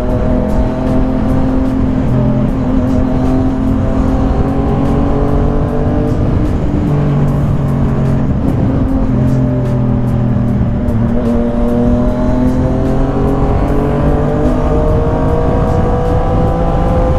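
Yamaha MT-09's inline-three engine running under way at road speed, its pitch climbing gradually, easing off about ten seconds in, then climbing again, over heavy wind noise.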